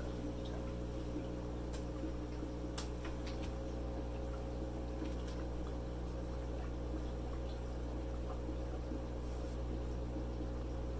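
Steady electric buzz of vibrating-diaphragm aquarium air pumps running in a fish room, with faint bubbling and a few light clicks and taps in the first few seconds.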